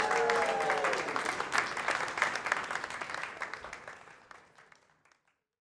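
Crowd applauding with dense, irregular clapping. The applause fades away over the last couple of seconds.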